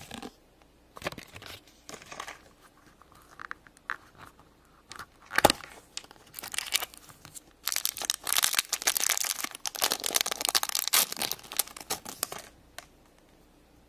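Hands handling toy packaging with paper and plastic crinkling. About five seconds in, a sharp click as the small plastic backpack case snaps open. Near the end comes several seconds of dense crinkling and tearing as a foil-wrapped surprise figure is unwrapped.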